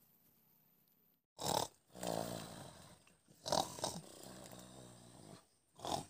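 A person snoring: rattling snores on the breaths, coming in loud bursts roughly every two seconds, after a quiet first second.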